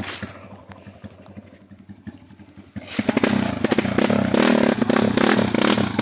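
Motorcycle engine running on a forest trail, quietly at first; about three seconds in it suddenly gets much louder, with a lot of rattling and clatter.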